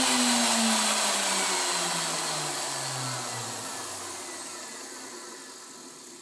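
Tool post grinder switched off and spinning down: its hum falls steadily in pitch and fades over about four seconds.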